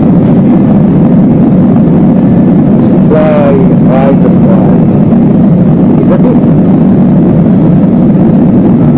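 Loud, steady rumble of jet airliner cabin noise, the engines and airflow heard from inside the cabin.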